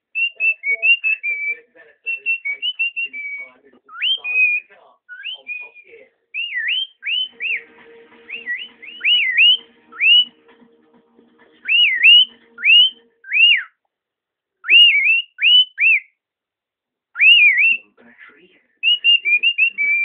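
Cockatiel whistling its song: first quick strings of short chirpy whistles, then loud sweeping whistles that swoop up and down, in phrases of two to four broken by short pauses.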